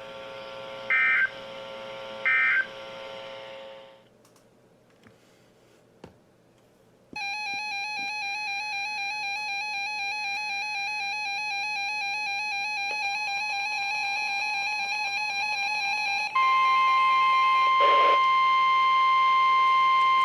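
Emergency Alert System tones between two broadcast weather alerts. It opens with three short data bursts about a second apart over a steady tone, the end-of-message code of the alert just finished, then a few seconds of near quiet. A steady electronic tone follows, and about 16 seconds in it gives way to the loud, steady 1050 Hz NOAA Weather Radio warning alarm tone that heralds the next alert.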